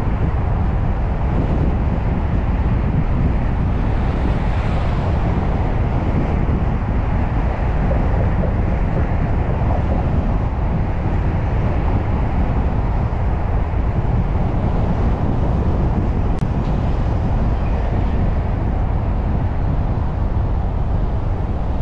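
Steady road and wind noise of a car driving along a city street, heaviest in the low end.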